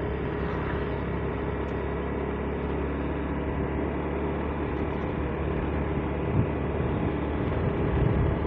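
Steady drone of a moving vehicle's engine with road noise, and a few low thumps about six and eight seconds in.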